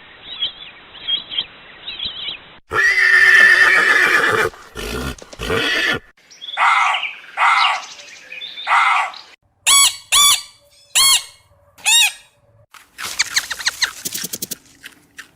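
Goats bleating, a string of separate calls from several recordings cut one after another: three calls of about a second each in the middle, then five short, sharp calls rising and falling in pitch.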